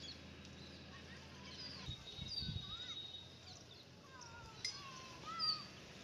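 Birds chirping: a scatter of short high chirps and whistles that rise and fall in pitch, with a louder one about five and a half seconds in.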